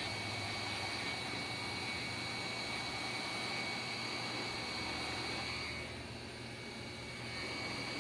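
Electric heat gun running, its fan blowing steadily with a thin high whine, as it shrinks heat-shrink tubing over a wire splice. The sound drops a little about six seconds in, then comes back up.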